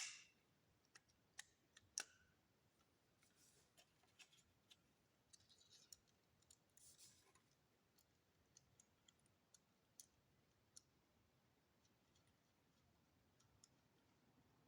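Near silence with faint, scattered small clicks and brief light scraping of spinning-reel parts being handled and fitted together. The sharpest clicks come at the very start and about two seconds in.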